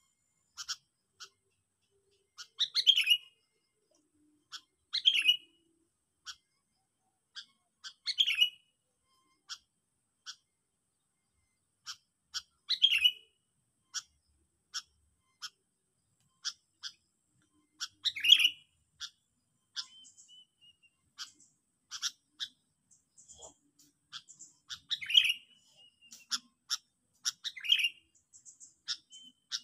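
Sooty-headed bulbul lure calls: sharp, short chips repeating about once a second, broken every few seconds by a louder call that falls in pitch. These are the pikat (luring) calls meant to draw wild bulbuls in.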